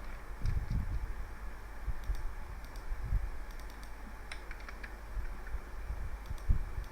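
Computer keyboard being typed on in short, irregular taps, mixed with a few dull knocks, the loudest near the end, as dimension values are keyed in.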